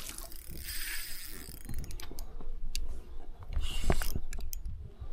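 Spinning reel being cranked under load while reeling in a hooked northern pike: a steady run of small gear clicks and ticks.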